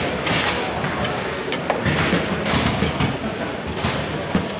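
Bonzini foosball table in play: irregular sharp knocks of the ball against the wooden figures and table walls, with the rods rattling and sliding in their bearings.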